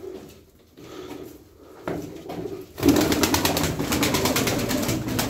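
Pigeons cooing softly in a loft; about three seconds in, a Turkish tumbler pigeon takes off and its wings set up a loud, rapid run of claps and flapping, like a machine gun.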